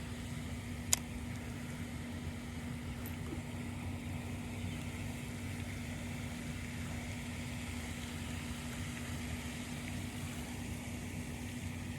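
A motor running steadily, a low hum with one constant tone, with a single sharp click about a second in.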